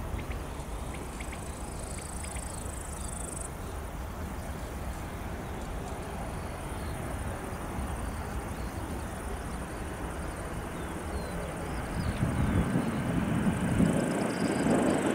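Boeing C-32A's twin turbofan jet engines at takeoff thrust, a steady rumble that grows louder near the end as the jet lifts off. Insects chirp faintly in a thin high band.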